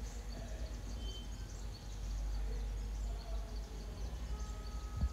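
Faint low background rumble with a couple of brief high chirps, one about a second in and a longer one near the end, then a single soft click at the very end.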